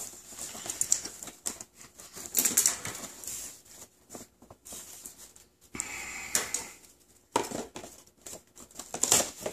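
Irregular clicking and crinkling of a toy's cardboard-and-plastic display box as a hand handles the plush toy inside it.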